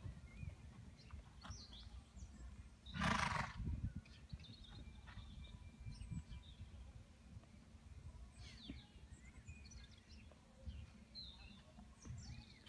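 A horse whinnies once, briefly, about three seconds in.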